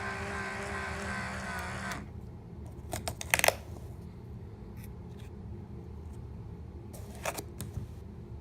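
Small electric motor humming steadily, cutting off abruptly about two seconds in; then a few sharp clicks, the loudest cluster about a second later and fainter ones near the end.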